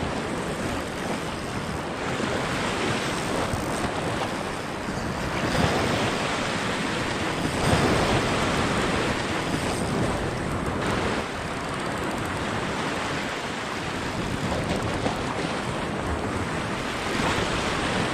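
Sea waves surging and washing over rocks at the water's edge, rising and falling in level, with wind on the microphone.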